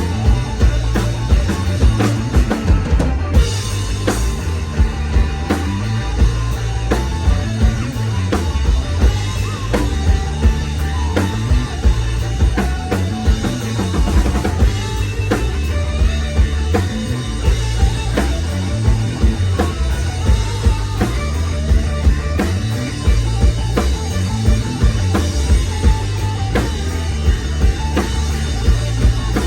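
Rock song played by a band with a drum kit, with a steady beat of about two strong hits a second.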